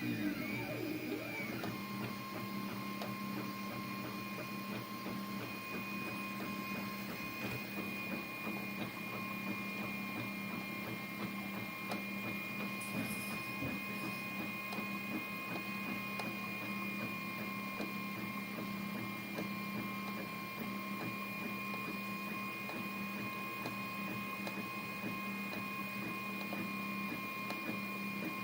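Anet A8 3D printer printing, its stepper motors whining in steady tones, with pitch glides that rise and fall in the first second or so as the print head changes speed.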